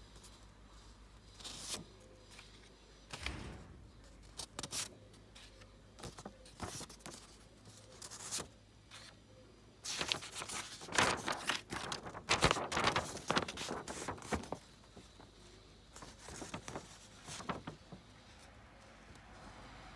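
Printed card sheets and a paper instruction sheet rustling and rubbing as they are handled and shuffled, in short irregular bursts. The rustling is loudest and busiest from about halfway through for a few seconds.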